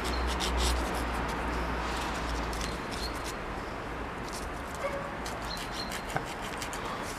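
Short scratchy strokes of hand-held abrasive paper on the steel of a shotgun's action, smoothing a fresh soft-solder braze. A low wind rumble on the microphone eases off about halfway through.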